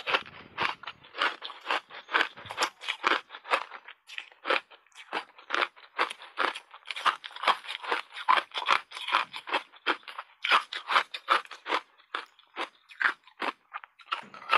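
Close-up chewing of crunchy frozen block ice: a rapid run of sharp crunches, about three or four a second, with a brief pause about four seconds in.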